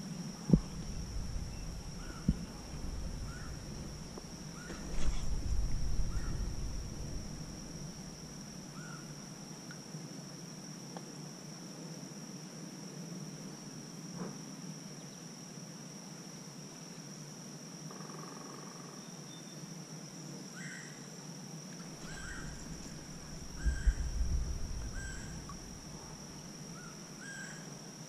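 Insects keep up a steady high-pitched drone throughout, with faint scattered bird chirps. Two sharp knocks come in the first few seconds, and there are two spells of low rumble, about five seconds in and again near the end.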